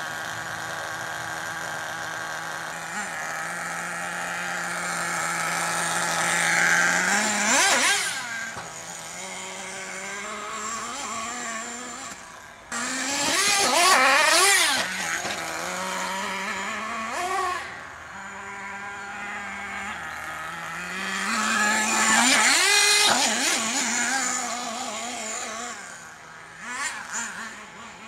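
Small nitro engine of an HPI Firestorm RC truck running at a steady pitch, then revving up sharply several times, about seven, thirteen and twenty-two seconds in, with the pitch dropping back between revs. Its loudness rises and falls as the truck is driven.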